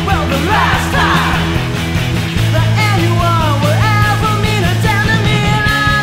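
Indie rock song playing, with a steady beat and melodic lines that glide up and down.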